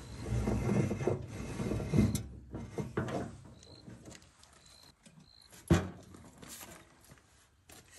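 Handling noise on a tracked snowblower being readied for a start, its engine not yet running: low shuffling and rustling in the first few seconds, then a single sharp knock a little past halfway and a lighter click near the end.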